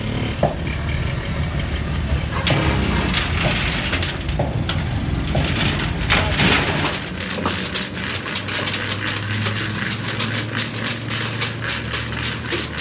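Metal knocks and clanks as a heavy truck trunnion bracket is handled in a steel cargo bed, then a hand chain hoist's chain clinking rapidly through the last few seconds as the part is lifted. A small engine runs steadily underneath.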